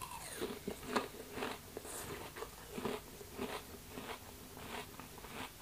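Close-miked chewing of a crisp mouthful of rose apple (wax apple): wet crunches about two a second, growing softer near the end.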